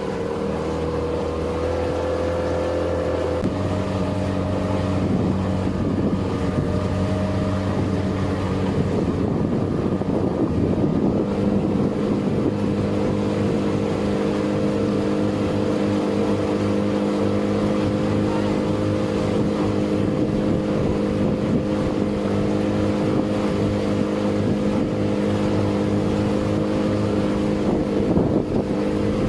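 Motorboat engine running steadily under way. Its note shifts a few seconds in, then settles and holds an even pitch.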